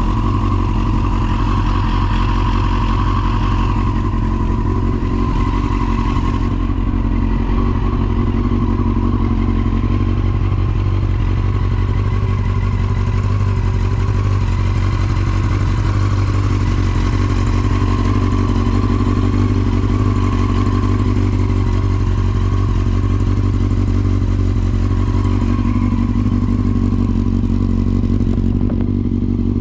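Yamaha YZF-R6 (5EB) inline-four engine idling steadily through a Striker titanium full exhaust. The seller presents it as running with no abnormal engine noise.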